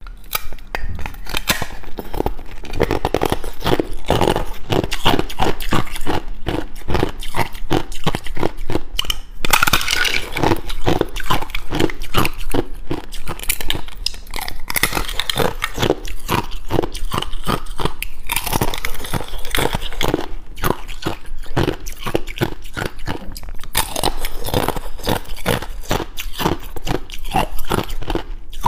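Thin sheet ice frozen in a silicone mould being bitten and chewed, close-miked: a dense, continuous run of sharp crunches, cracks and crackles.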